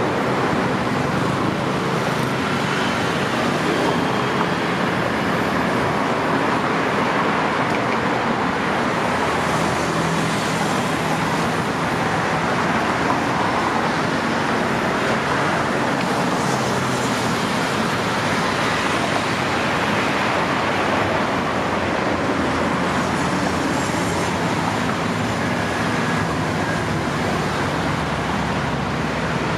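Steady road traffic from a busy multi-lane road, cars passing close by with their engines and tyres making a continuous noise.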